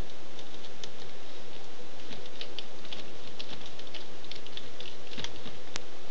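Small irregular clicks and ticks of a Phillips screwdriver turning the tiny screws in a netbook's plastic screen housing, over a steady hiss.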